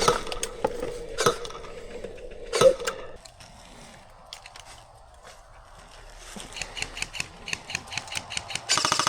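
Airsoft gunfire in close quarters: a few single shots early on, scattered shots building up later, and a rapid full-auto burst right at the end.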